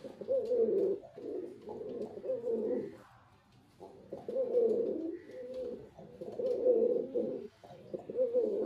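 Male domestic pigeon cooing: a run of about five low, warbling coo phrases, each one to two seconds long, with short breaks between them.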